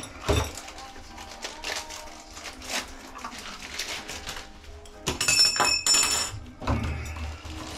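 Small chrome faucet parts clinking and rattling in a clear plastic parts box as they are handled, with a brighter cluster of metallic clinks and ringing about five seconds in. Music plays faintly underneath.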